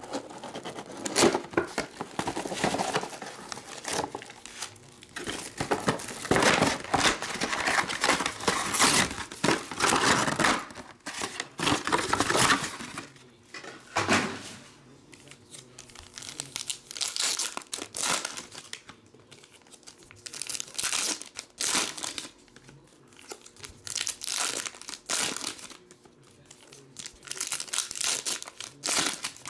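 Plastic wrapping and foil trading-card packs crinkling and tearing as a box of cards is opened. There is a long stretch of dense crinkling first, then shorter separate bursts of crinkling as a foil pack is torn open.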